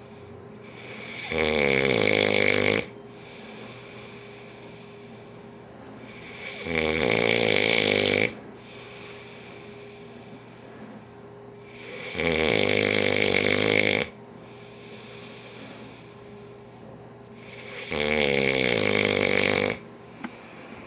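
A man snoring loudly: four long snores about five and a half seconds apart, each lasting about a second and a half.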